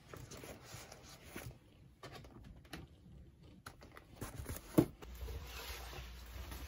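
Handling noises of packing and dressing: fabric rustling, a bag zipper and a keyboard being handled, with scattered small clicks and one sharp knock about three quarters of the way through. A padded jacket is pulled on near the end.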